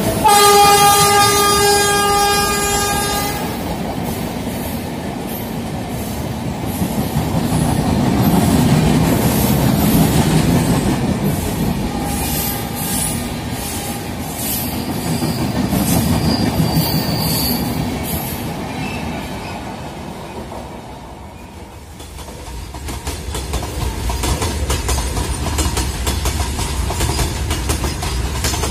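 A train horn sounds one long blast of about three seconds, then a passing train runs by with a clattering rumble that swells and fades. The rumble dips about twenty seconds in and then picks up again.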